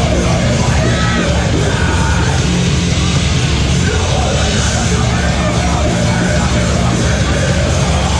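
Metalcore band playing live and loud: distorted guitars, bass and pounding drums, with the vocalist screaming over them into the microphone.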